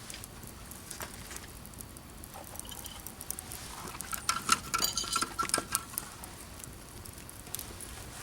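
Wood campfire crackling with scattered sharp pops. About halfway through comes a short run of quick clicks with a thin, squeaky tone.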